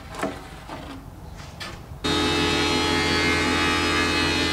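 A wooden board knocks and rubs against a metal rack as it is pulled out. About two seconds in, the steady hum of a running wood planer starts abruptly and carries on at an even level.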